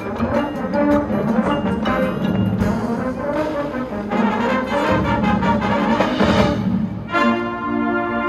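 High school marching band playing live: brass over drum and percussion strokes, landing about seven seconds in on a long held brass chord.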